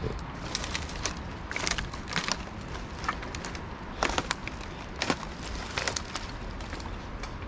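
Footsteps crunching and snapping through dry twigs, sticks and woody debris, irregular crackles and cracks over a steady low rumble.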